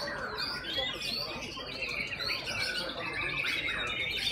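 Many caged white-rumped shamas singing at once, their whistled phrases and chattering calls overlapping in a dense, unbroken chorus while the birds are judged in a singing contest.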